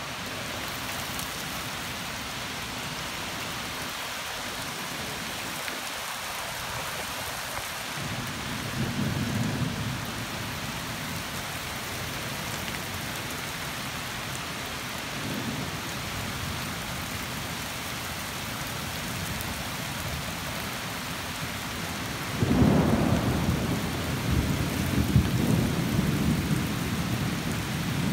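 Steady rain falling, with a low rumble of thunder about eight seconds in and a sudden, louder peal of thunder near the end that rolls on for several seconds.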